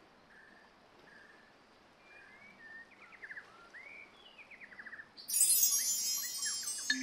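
Bird chirps and short whistling glides over a faint background hiss. About five seconds in, a loud, shimmering run of chimes starts and keeps ringing.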